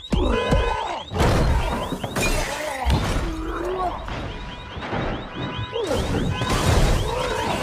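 Film sound effects of a BMW being smashed: glass shattering and heavy crashing hits on the car, several times over, with a car alarm's repeating electronic warble going on underneath.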